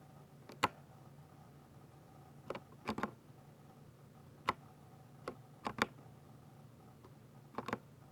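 Sparse keystrokes on a 60% mechanical keyboard with Ducky silver switches, typing Bopomofo. The strokes come singly or in quick pairs and triples with pauses of a second or more between.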